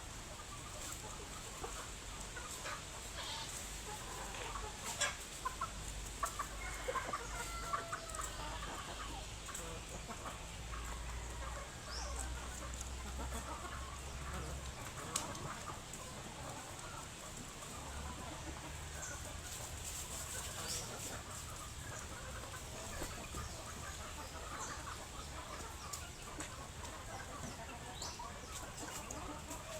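A flock of chickens clucking, with many short, scattered calls and small clicks throughout.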